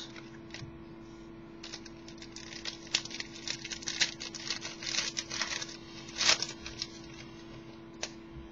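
Trading cards being handled: a quick run of small clicks, snaps and rustles as cards are slid against one another, over a steady low electrical hum.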